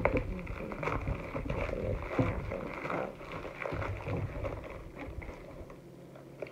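Rustling and crinkling of a pink metallic bubble mailer being opened and handled, with irregular scratchy crackles that die down near the end.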